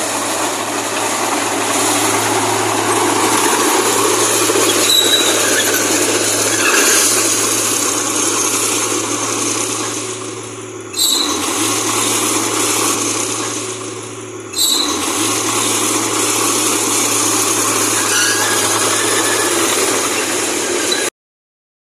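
Komatsu D31P crawler bulldozer running, a steady low engine hum under loud, noisy machine sound. The sound fades twice and cuts back in sharply, about eleven and fifteen seconds in.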